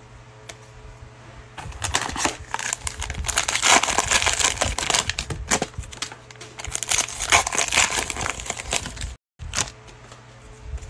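Plastic cellophane wrapper of a 2021 Panini Mosaic football trading-card pack crinkling and tearing as it is ripped open by hand, several seconds of dense crackly rustling.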